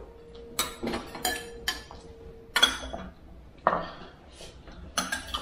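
Spoons and other cutlery clinking against bowls and plates while eating, about eight separate sharp clinks spread irregularly through a few seconds.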